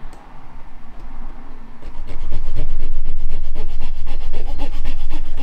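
Fine hobby saw blade sawing through a resin casting block to free a small resin part, the wet resin scraping under the blade. Quiet scraping at first, then about two seconds in loud, quick back-and-forth strokes, about six a second.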